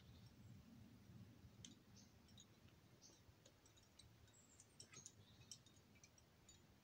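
Near silence: faint outdoor quiet with scattered brief high clicks and a few short high chirps.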